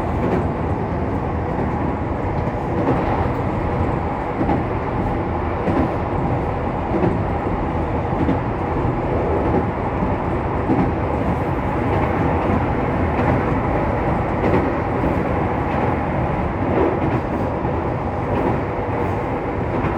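Keihan 800 series train running, steady rumble and rail noise heard inside the passenger car, with a few faint knocks from the track.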